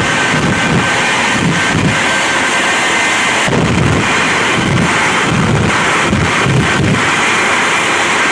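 Shockwave jet truck's three Pratt & Whitney J34 turbojets running at full power with afterburners lit: a loud, steady jet blast with a low throbbing about three times a second.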